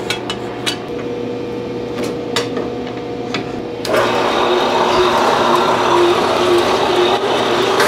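A 4.5 x 6 inch horizontal metal-cutting band saw running steadily, with a few light clicks. About four seconds in the blade starts cutting a flat metal bar clamped in the vise, and the sound turns louder and rougher, with a pulsing tone.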